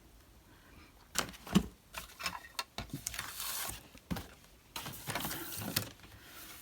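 Small pieces of card being handled on a craft table: a few sharp taps and knocks, the loudest about one and a half seconds in, then two spells of card rustling and sliding.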